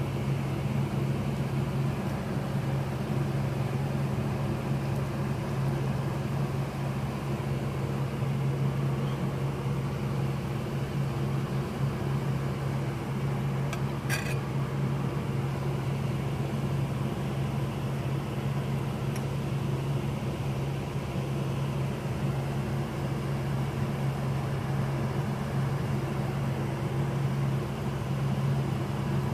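Steady low mechanical hum of a running appliance motor or fan, with one short click about fourteen seconds in.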